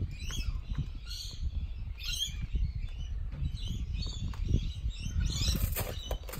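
Small birds chirping repeatedly in short calls over a steady low rumble.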